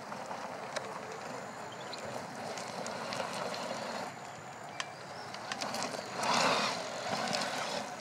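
1/8-scale Absima CR1.8 RC rock crawler's electric motor and drivetrain whining as it crawls over loose gravel, with small stones clicking and crunching under the tyres. A louder scrabble of gravel comes about six seconds in.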